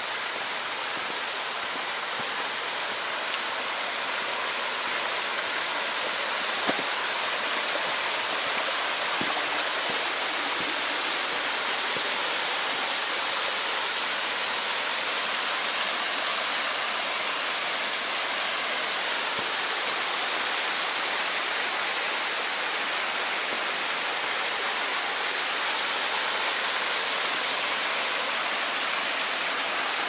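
Waterfall: a steady rush of falling water that holds even throughout.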